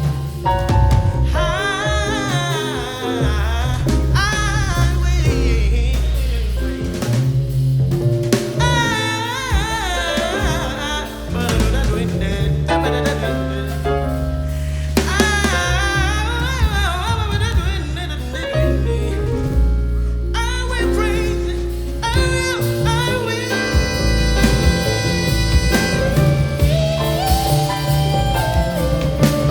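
Live jazz-style band playing an instrumental passage: drum kit, double bass and piano under wavering saxophone and trumpet melody lines.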